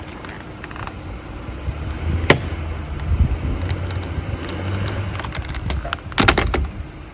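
Pickup truck engine running with a low rumble that swells and holds for a few seconds, with a sharp knock about two seconds in and a quick rattle of knocks near the end.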